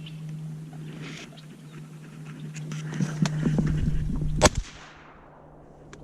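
Ducks flushing close beside a kayak: a second or so of splashing and wing flapping, ending in one sharp crack about four and a half seconds in.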